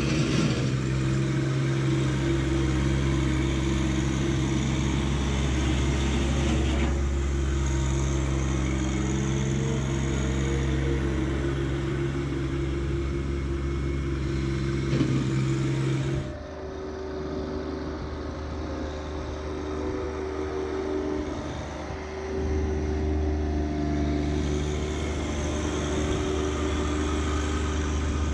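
John Deere 1025R subcompact tractor's three-cylinder diesel engine running steadily. About two-thirds of the way through the engine note drops lower and quieter for several seconds, then comes back up.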